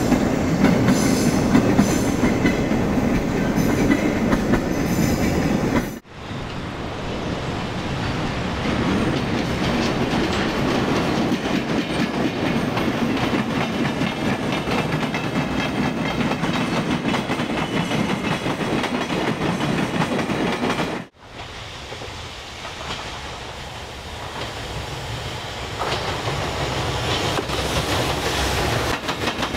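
Freight trains passing close by: EF210 electric locomotives hauling unpowered DD200 diesel locomotives and container wagons, with the steady clatter of steel wheels on the rails. There are three takes, and the sound cuts off abruptly about 6 and 21 seconds in. The loudest pass comes first.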